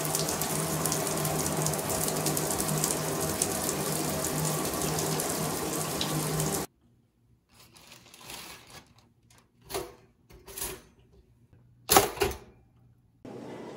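A shower spray hisses steadily on the shower walls and cuts off abruptly about six and a half seconds in. A few quiet clicks and knocks follow, then a loud sharp clack from a toaster about twelve seconds in.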